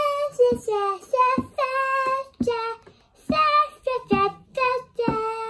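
A young girl singing a wordless sing-song runway tune, a string of short held notes rising and falling, with a soft low knock at the start of many of the notes.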